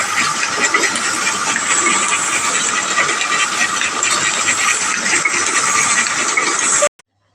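Gestetner 211 offset printing press running a colour-separation print run: a steady mechanical clatter of many fine clicks. It cuts off suddenly just before the end.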